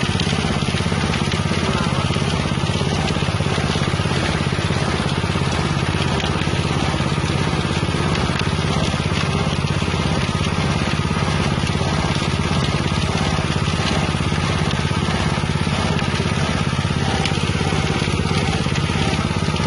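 Engine-driven spice grinding mill running steadily, its 6.5 hp engine and grinding chamber making a loud, even mechanical noise as it crushes spices.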